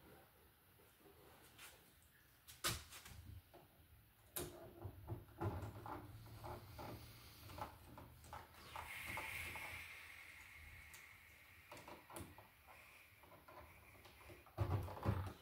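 Scattered clicks and knocks of a double wall switch being pushed into its electrical box and its mounting screws driven with a hand screwdriver, with a short scraping about the middle and the loudest knocks near the end.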